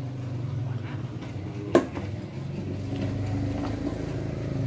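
Metal parts of a new PCP air rifle being handled, with one sharp metallic clink a little under two seconds in and small fiddling clicks. A steady low hum underlies it.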